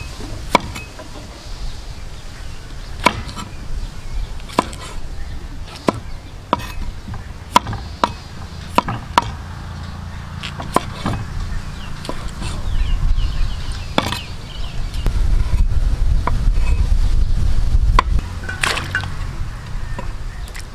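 A cleaver chopping through cucumber onto a thick wooden chopping board: sharp single knocks at an uneven pace, roughly one every second. A low rumble swells for several seconds in the second half.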